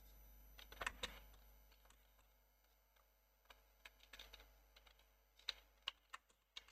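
Faint computer keyboard typing: scattered single keystrokes, a small cluster about a second in, a few more around four seconds, and separate taps near the end.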